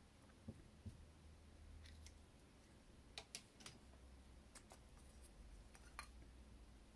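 Faint clicks and small knocks of plastic parts as a single-lever mixer-tap cartridge is handled and pulled apart: two soft knocks near the start, then a scatter of sharp little clicks in the second half.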